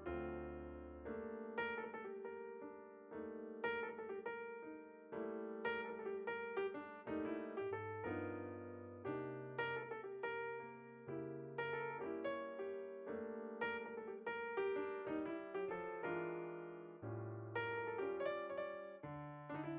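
Slow, gentle solo piano music, with chords and single notes struck and left to ring over a slowly moving bass line.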